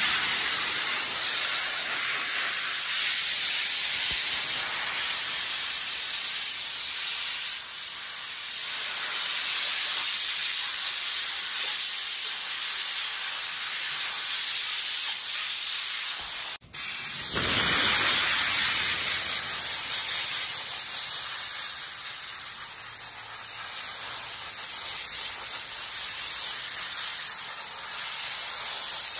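Steam jet from a car-wash steam cleaner's lance, hissing loudly and steadily; it cuts out for a moment a little past halfway and then carries on.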